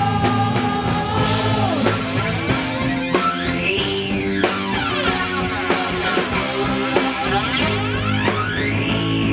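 Student rock band playing live, electric guitars, bass and drums over a steady beat. A held sung note from the singers ends about two seconds in, giving way to an instrumental guitar passage, with a sweeping sound that rises and falls twice.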